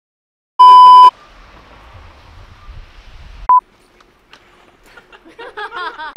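Three electronic bleep tones dubbed into the edit: a loud half-second beep about half a second in, a short one about three and a half seconds in, and another at the very end, with a faint hiss and a brief voice between them.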